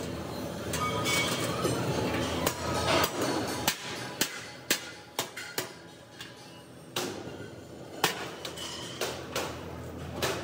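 Hammer blows on sheet-steel LPG cylinder parts: an irregular series of sharp metallic clanks, about a dozen, some ringing briefly. A steady low hum runs underneath.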